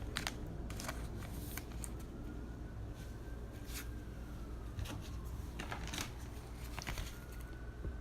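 Trading cards being handled and sorted by hand: light scattered clicks and card-on-card slides.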